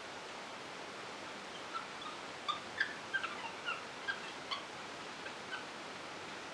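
About a dozen short, high chirping animal calls in quick succession over a few seconds, starting near two seconds in, over a steady background hiss.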